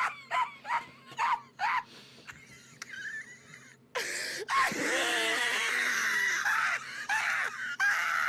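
A man's stifled laughter: a run of short, high, squeaky wheezes in the first two seconds, then a longer, louder outburst from about four seconds in, as he tries not to laugh.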